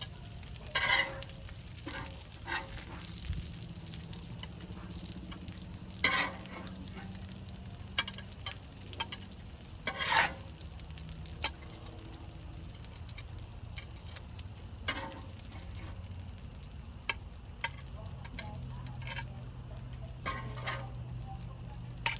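Burger patties sizzling as they fry on a hot cooking surface, a steady crackling hiss, with sharp clanks and scrapes every few seconds.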